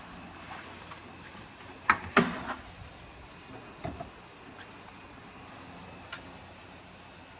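A few short sharp clicks and knocks over a steady faint hiss: two close together about two seconds in, the second the loudest, a pair near four seconds and a lighter one about six seconds in.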